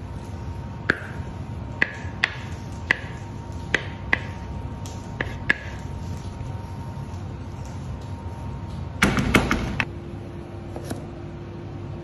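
Wooden spoon knocking and scraping cooked rice out of a wooden bowl onto a metal sheet pan: sharp knocks with a short ring, about one a second, then a denser clatter of scraping about nine seconds in. A faint steady hum runs underneath.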